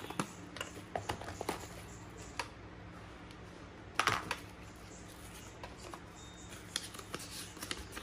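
Paper and tissue wrapping rustling, with light clicks and taps, as hands rummage through the contents of a metal tin box; one louder rustle comes about four seconds in.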